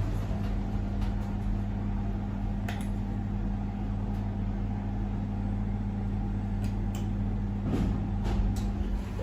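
Passenger lift in motion: a steady low motor hum with a constant higher whine through the car's travel. The whine drops out near the end, with a few sharp clicks as the car comes to a stop and levels.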